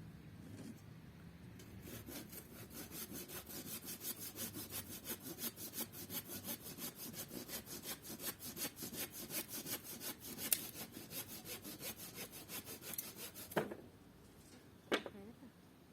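Hand saw cutting through a wooden board in steady back-and-forth strokes, about two to three a second, stopping about 13 seconds in. Two brief squeak-like sounds that fall in pitch follow.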